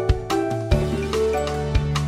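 Light instrumental background music: sustained melodic notes over a low bass line, punctuated by sharp percussive hits.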